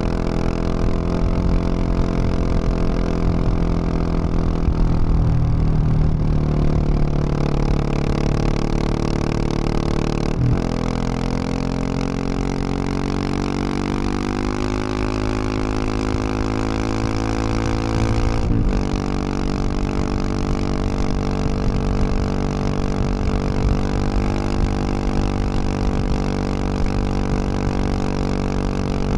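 2021 Husqvarna 701 Supermoto's single-cylinder engine through a Wings aftermarket exhaust, running at road speed under wind rush. Its pitch falls over the first few seconds and climbs again later, with two short breaks about ten and eighteen seconds in.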